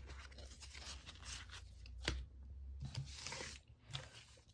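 Faint rustling and rubbing of Pokémon trading cards and booster-pack wrappers being handled, with a sharp click about two seconds in.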